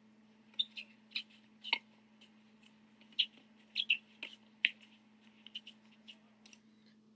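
About a dozen sharp, irregular clicks and taps over a faint steady hum.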